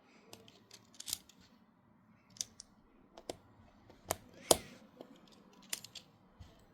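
Lego bricks clicking as they are handled and pressed together: about seven sharp, irregular plastic clicks, the loudest about four and a half seconds in.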